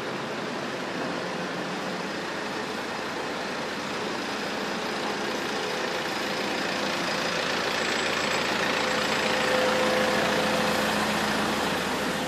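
Street traffic with a large vehicle's engine running close by, growing steadily louder to about ten seconds in and easing off near the end.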